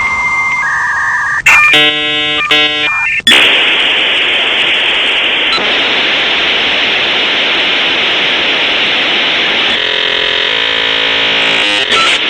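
Dial-up modem handshake over a phone line: short steady tones and buzzy warbling tones, then a long loud hiss of static, joined by another buzzy tone near the end.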